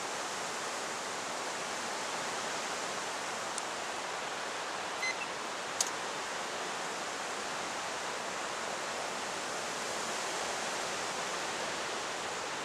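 Steady outdoor hiss of a breeze through riverside reeds and trees. A short squeak and then a single sharp click come about five to six seconds in.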